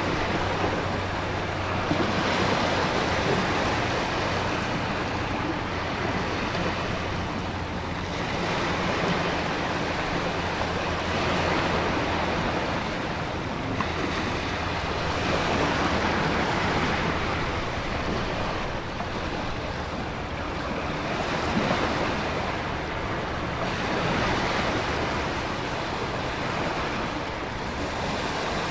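Storm ambience of heavy ocean surf and wind with a constant rain hiss, the wash swelling and easing in waves every three to four seconds. A faint low hum lies underneath during the first third.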